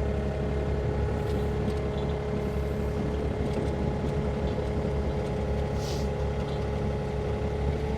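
Sany mini excavator's diesel engine running steadily under work, with a constant tone held over the engine. A brief hiss about six seconds in.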